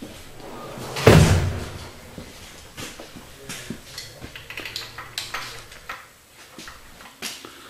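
A loud knock about a second in, then light irregular clicks and taps as a crescent wrench on the snout turns a Chevy 350 Vortec crankshaft over in its main bearings. The crank turns over easily with no binding, the sign that the bearing clearances are right.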